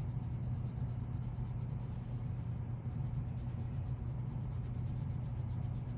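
Watercolor pencil scratching across paper in short colouring strokes, over a steady low hum.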